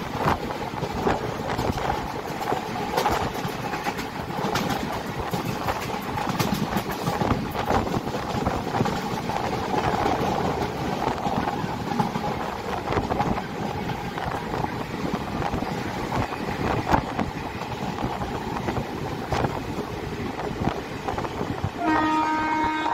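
Passenger train running at speed, its wheels clicking over rail joints under a steady rush of running noise. A steady horn starts about a second before the end.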